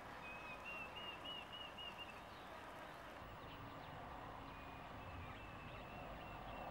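A bird calling two runs of short whistled notes, about three a second, over a faint steady hum of honeybees flying between their hives and the ponds.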